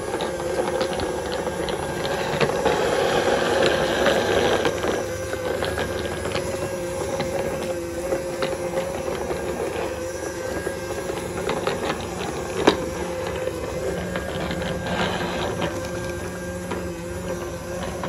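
Budget 'Sweepin' Robot' robot vacuum running as it sweeps a tiled floor: a steady motor hum from its fan and brushes, with scattered light clicks and one sharper click about two-thirds of the way through.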